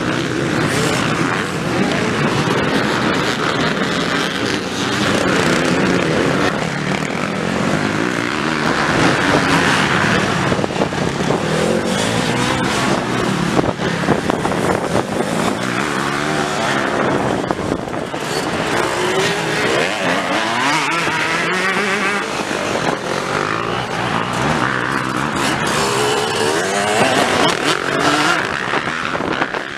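Several motocross dirt bike engines revving hard as the bikes ride the track. The pitch climbs and drops again and again through the gear changes as riders pass close by.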